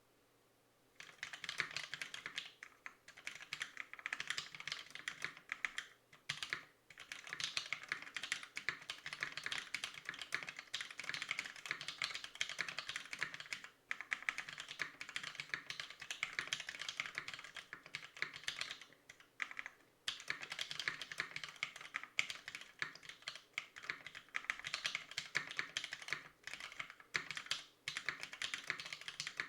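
Typing on a Fusion60 mechanical keyboard with NovelKeys Cream linear switches, lubed with 205g0, on a brass plate: a steady stream of keystroke clacks starting about a second in, broken by a few short pauses.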